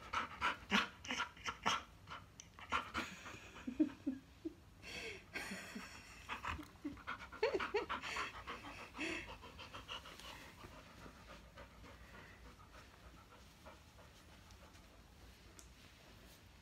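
Yellow Labrador retriever panting hard at close range, quick breaths at about three a second. The panting dies away about ten seconds in.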